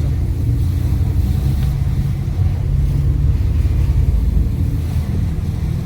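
Fiat Linea driving along, heard from inside the cabin: a steady low rumble of engine and road noise.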